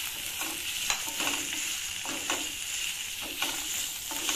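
Chopped onions and garlic sizzling in oil in a stainless steel kadhai on low heat, with a steady hiss. A wooden spatula scrapes and stirs through them about once a second, with one sharper click against the pan about a second in.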